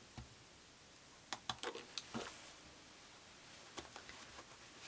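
Quiet handling sounds: a cluster of short, sharp clicks and taps a little over a second in and one more near the end, as a steam iron is lifted off a quilt and set down on its plastic rest and the fabric binding is handled.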